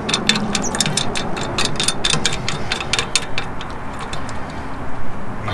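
Hand ratchet wrench clicking rapidly as a nut on a trimmer rack's mounting bracket is run down, the clicks thinning out and stopping a little past halfway.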